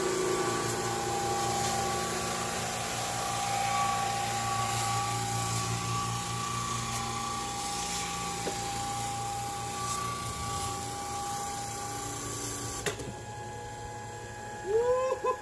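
EZ-8 walk-behind floor sander running, its electric motor whining steadily while the sanding drum grinds the weathered top off wooden deck boards. About 13 seconds in, the grinding drops away after a click, leaving the motor's whine.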